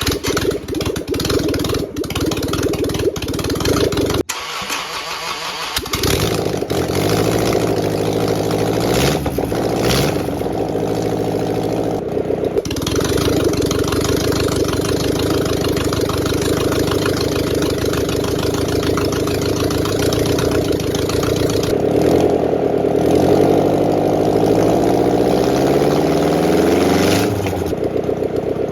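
Rebuilt diesel boat engine starting up: a few seconds of uneven, stuttering firing, then it catches and runs steadily. Its pitch rises and falls twice as the speed changes.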